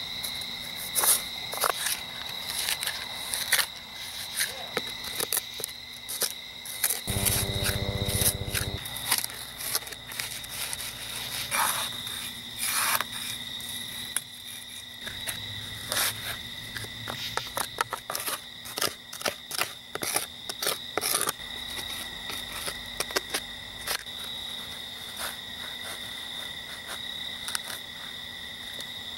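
A hand trowel scraping and digging into soil in irregular scrapes and clicks, over a steady high trill of crickets.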